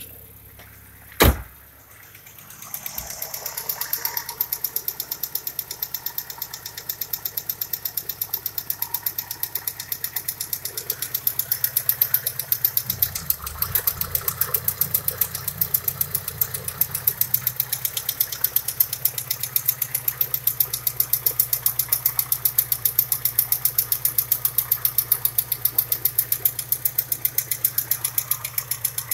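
Volkswagen Passat B3's 2.0-litre 2E inline-four petrol engine idling steadily, with a fast, even ticking running through it, heard at the open bonnet with the oil filler cap off. A single loud knock comes about a second in, and the engine is louder from about two seconds in.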